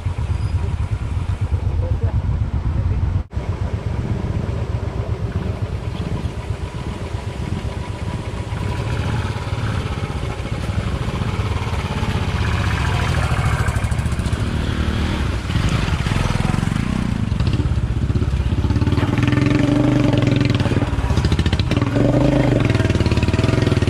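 Motorcycle engine running steadily while riding, with wind rushing over the microphone. The sound briefly cuts out about three seconds in.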